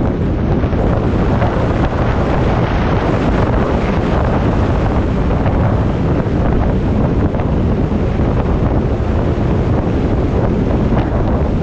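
Steady wind noise buffeting the microphone of a camera on a motorcycle moving at road speed, an even rush with no breaks.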